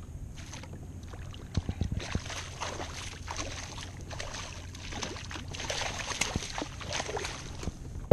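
A hooked fluke thrashing and splashing at the water's surface beside a kayak as it is brought to the landing net, with a few sharp knocks about a second and a half in.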